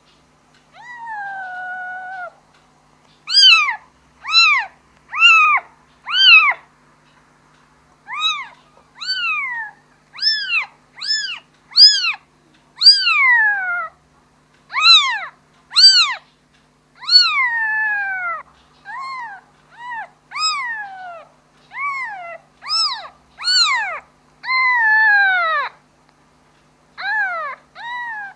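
Kitten meowing over and over in high-pitched calls that rise and fall, about one a second, some drawn out longer, with a short pause near the end: a kitten calling for its mother.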